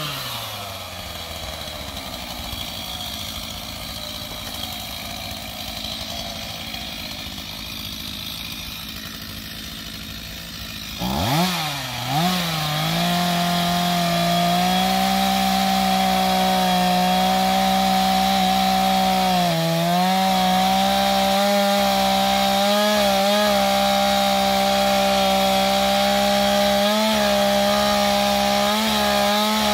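STIHL MS 251 two-stroke chainsaw dropping back to idle for about ten seconds, then blipped up with a few quick revs and held at full throttle cutting into a tree trunk. Its pitch sags briefly a few times under the load of the cut.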